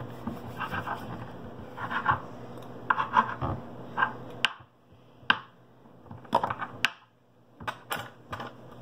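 A knife scraping and tapping on a tabletop while cutting and shaping Play-Doh: short scratchy scrapes and scattered sharp clicks, sparser in the second half.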